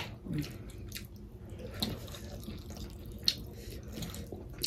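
Quiet, wet eating sounds: soft chewing and lip smacks of soup-soaked pork momos, with a few sharp mouth clicks.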